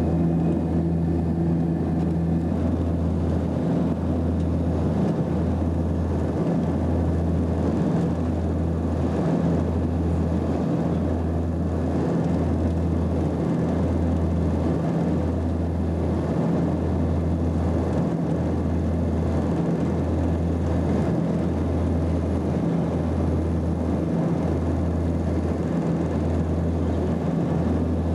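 Cabin noise of an Antonov An-24 in flight: its two Ivchenko AI-24 turboprops and their propellers make a steady deep drone with a low hum. The drone pulses slowly and regularly about every one and a half seconds, the beat of two propellers turning slightly out of step.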